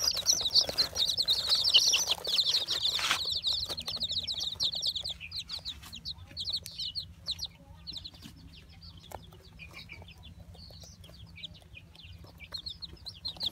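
A brood of young chicks peeping: many rapid high peeps at once, thinning out and growing fainter about halfway through, then picking up again near the end.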